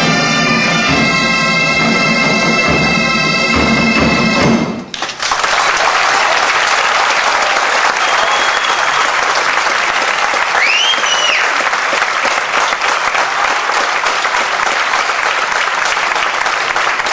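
Bagpipe tune over a steady drone, which cuts off abruptly about five seconds in. A crowd applauding follows, with a couple of sharp whistles.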